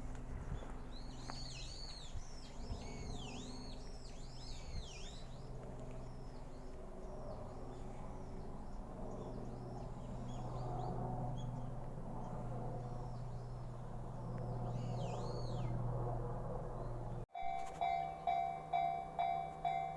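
Birds calling in quick, repeated swooping chirps over a steady low hum, with a low rumble swelling in the middle. After an abrupt cut near the end, a railway level-crossing alarm rings in even pulses at about two a second.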